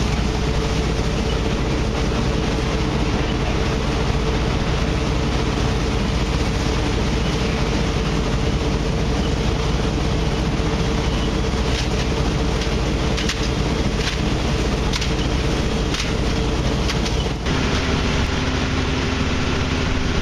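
Fire apparatus engines and pumps running at a fire scene: a loud, constant drone with a steady hum. A few sharp clicks come in the second half, and the hum drops abruptly to a lower pitch near the end.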